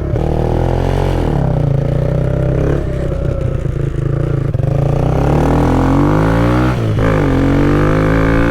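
Kawasaki Z125's single-cylinder 125 cc four-stroke engine through an aftermarket full exhaust, accelerating on the road. The pitch climbs and drops sharply at gear changes about three seconds in and again near seven seconds, then climbs again.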